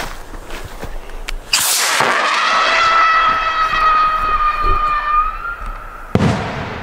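Whistling firework: a sudden hiss as it goes off, then a high, steady whistle lasting about three and a half seconds that sags slightly and rises just before it stops, followed about half a second later by a bang.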